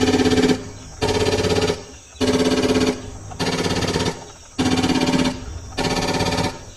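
Battery-powered toy gun firing its electronic machine-gun sound effect: a rapid buzzy rattle with a steady electronic tone, repeated in bursts of about a second, about six times in a row.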